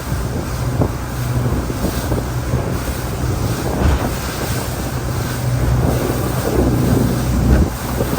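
Motorboat under way: a steady low engine hum under water rushing past the hull, with wind buffeting the microphone.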